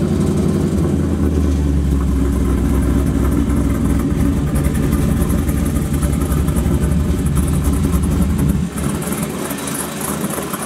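Pickup truck engine idling steadily with a low rumble. About eight and a half seconds in, the rumble drops away and a hiss is left.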